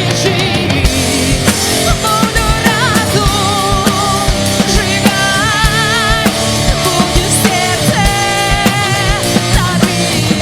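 Rock music with a steady drum beat under a lead melody line sung or played with wide vibrato.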